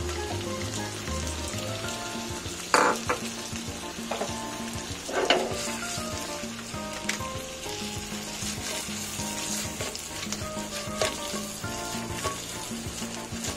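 Tempura shrimp sizzling in melted butter and garlic in a frying pan: a steady frying sizzle, with two brief louder bursts about three and five seconds in. Faint background music plays underneath.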